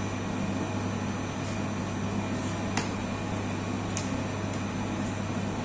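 Commercial dough mixer running with a steady electric hum as its hook kneads a large batch of bread dough in the steel bowl. Two faint clicks come about halfway through.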